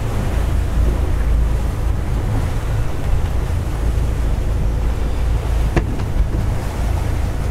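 Motor cruiser running at speed: a steady low engine drone under wind buffeting the microphone and water rushing past the hull. A single short knock a little before six seconds in.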